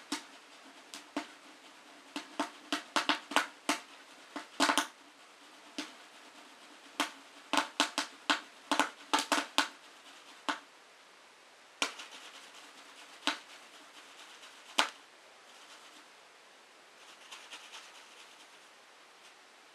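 Popcorn kernels popping in a pot, sharp and irregular: thick and fast for the first ten seconds or so, then thinning out to a few scattered pops, the last about fifteen seconds in, a sign that the batch is nearly done.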